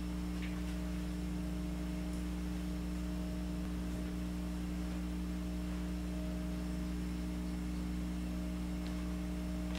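Steady electrical mains hum from the sound system, with a fainter higher tone that comes and goes.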